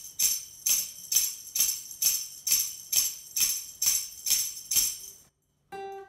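Jingle bells shaken in a steady beat, about two shakes a second. They stop about five seconds in, and after a brief gap a single held musical note starts just before the end.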